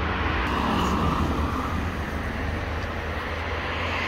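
Highway traffic: cars passing at speed, a steady noise of tyres and engines with a low rumble, easing slightly over the first seconds.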